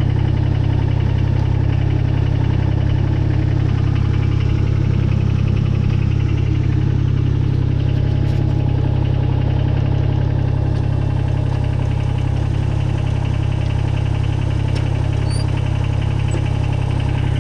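A Kubota BX22 compact tractor's three-cylinder diesel engine running steadily at an even speed while the backhoe hydraulics push the stabilizers down.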